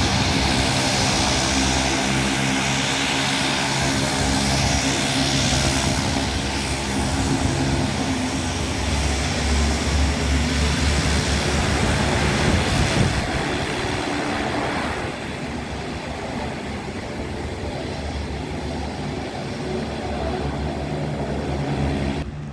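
The twin General Electric CT7 turboprop engines of a CN-235-220 military transport running as it taxis: a steady propeller drone with turbine hiss. It grows fainter about two-thirds of the way through as the aircraft moves off, and cuts off abruptly near the end.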